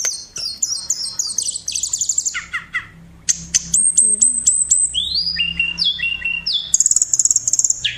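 A songbird singing close by, a rapid, varied song of high chirps, quick downward-sweeping whistles and short trills with hardly a pause.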